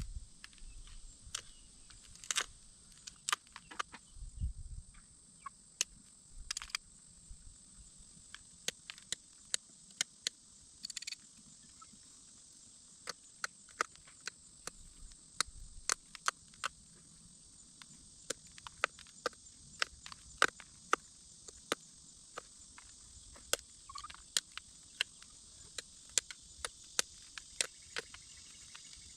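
Pressure flaking a glass arrowhead with a flaker: irregular sharp clicks as small flakes snap off the glass edge, coming more often in the second half. A steady high insect drone underneath.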